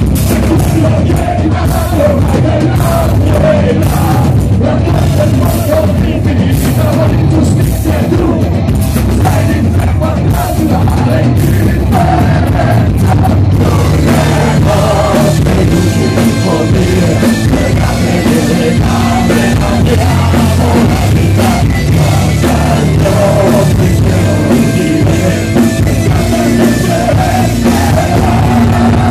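Live folk-rock band playing loudly, with drum kit and a singer. Drums hit hard through the first half, with more sustained instrumental tones later.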